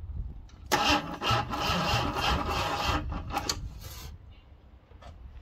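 Cortina's starter circuit jumped with a screwdriver across the solenoid terminals: a harsh grinding rasp starting about a second in and lasting about three seconds, as the weak starter tries to turn the 2.3 V6 over.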